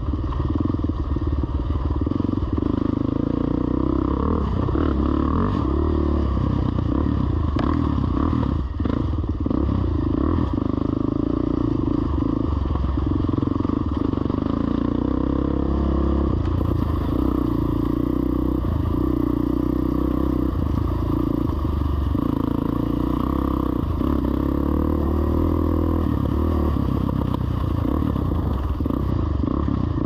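Off-road vehicle engine running while riding a rough dirt trail, its note rising and falling with the throttle. Scattered knocks and rattles come from the bumpy ground.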